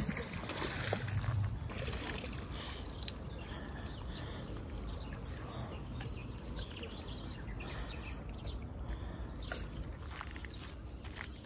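Water trickling and splashing as a fishing magnet on a rope is hauled up out of the river with a snagged branch, with a few sharp clicks.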